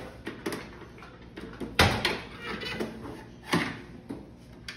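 Sharp knocks and clacks of hard plastic play things being handled: a toy cash register's keys and a play mug. The loudest knock comes about two seconds in, another about three and a half seconds in, with a few lighter clicks between.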